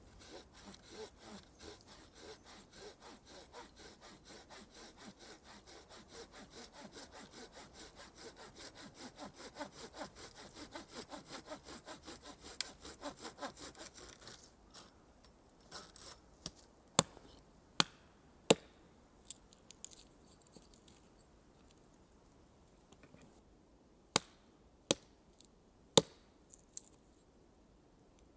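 Folding hand saw cutting through a dry branch in quick, even back-and-forth strokes, stopping about halfway through. Then come six sharp knocks of a hatchet striking wood, in two groups of three.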